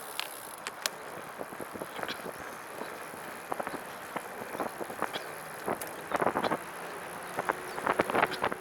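Recumbent trike rolling along with a steady hiss of wind and road, broken by irregular clicks and rattles that bunch up about six and eight seconds in.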